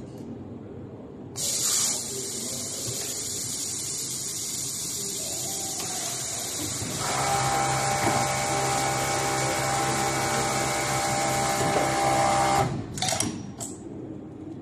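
An automated Pegasus industrial sewing unit: a steady hiss of compressed air starts about a second and a half in. About halfway through, the sewing machine runs at speed with a steady hum and whine for about five seconds. It stops abruptly, and a few short pneumatic puffs and clicks follow.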